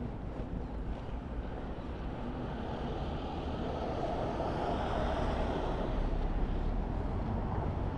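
A motor vehicle passing on a city street: a steady rush of tyre and engine noise that builds and is loudest about halfway through.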